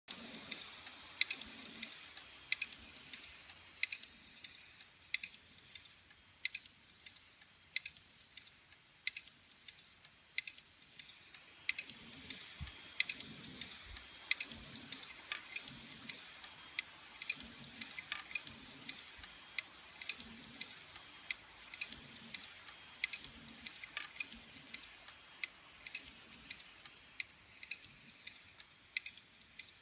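An opened hard disk drive's read/write head arm clicking repeatedly, about one to two sharp clicks a second, some with a soft knock, over the steady high whine of the spinning platter: the repeated clicking of a failing drive, the "click of death".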